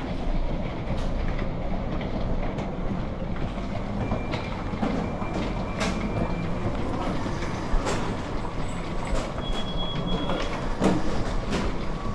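Wheeled suitcases rolling over a tiled floor: a steady rumble with irregular clicks as the small wheels cross the tile joints.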